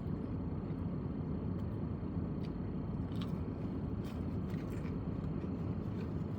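Steady low background rumble with a few faint clicks, like a car cabin or busy room.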